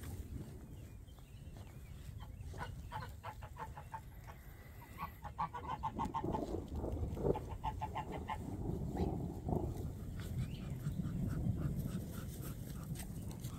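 Domestic geese honking in rapid runs of calls, starting a few seconds in and dying away near the end, over a low steady rumble.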